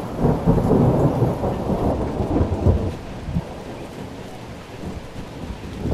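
Strong wind buffeting the microphone: an uneven, gusting rumble with no clear tone, which eases off about halfway through.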